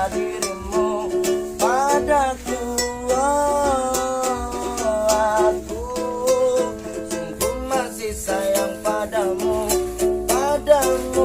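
A man singing with long held notes that slide between pitches, accompanied by a steadily strummed ukulele.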